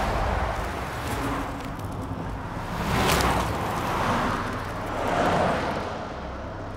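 Cars driving past on a road, each pass a swell of tyre and engine noise that rises and fades. The loudest passes come about three seconds in and again about five seconds in.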